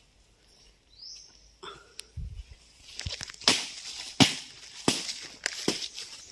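Footsteps on dry leaf litter and twigs, each step crackling, about one every 0.7 seconds, starting about three seconds in.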